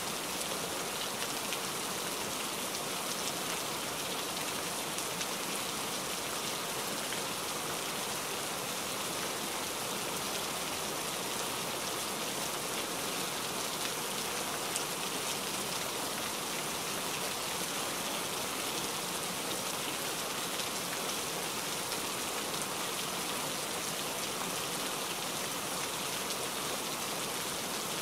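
Steady, even hiss like heavy rain falling, with no change in level throughout.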